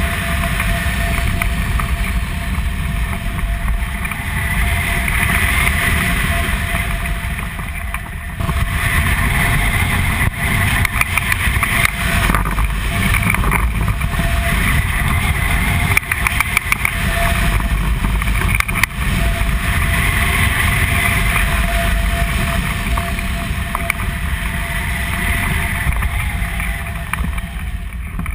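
Airflow rushing over a hang glider's wing-mounted camera microphone in flight, a loud steady buffeting rush with a faint steady whistle, easing somewhat near the end as the glider slows to land.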